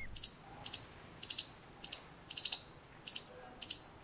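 Faint high-pitched chirps, each a short group of quick pulses, repeating about every half second.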